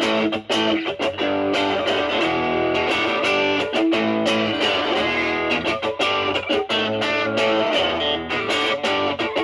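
Electric guitar, a Stratocaster with single-coil pickups, played through a Pro Co Brat distortion pedal with its gain at 11 o'clock into a Marshall Valvestate amp: a continuous run of picked notes and ringing chords, the drive cleaned up toward a lighter crunch.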